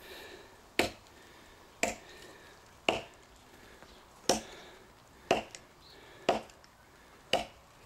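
Cold Steel Trail Hawk tomahawk chopping into a hard seasoned elm log: seven sharp blows, about a second apart.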